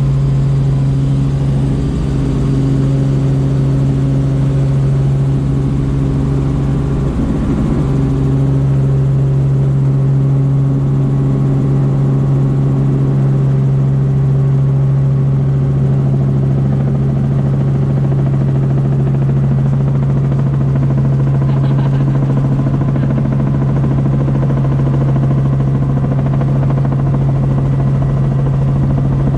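Helicopter running steadily: an even, unbroken drone with a strong low hum.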